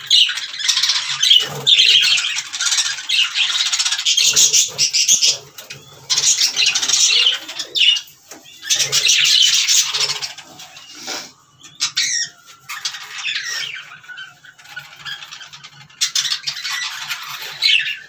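A flock of budgerigars chattering, in stretches broken by short pauses.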